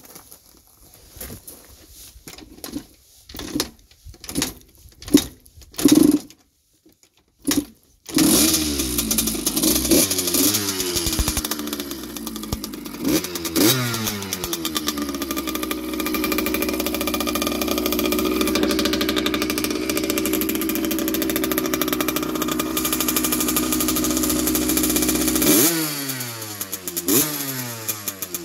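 The two-stroke single-cylinder engine of a 1982 Yamaha YZ80J dirt bike is kicked over several times with short coughs, then catches about eight seconds in. It runs on with a few revs of the throttle, settles back lower near the end, and is given quick blips.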